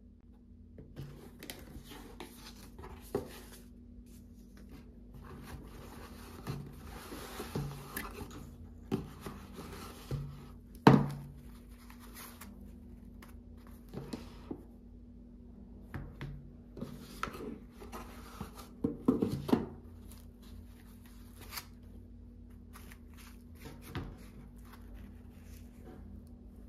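Hands opening a cardboard shoe box and handling a pair of flat shoes and a cloth dust bag: rustling and scraping with scattered light taps and knocks. The sharpest knock comes about 11 seconds in, and a quick cluster of taps about 19 seconds in.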